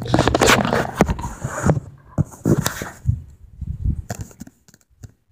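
Handling noise from a phone's microphone rubbing and knocking against cloth as the phone is moved about: a dense rustle for the first second and a half, thinning into scattered bumps and clicks.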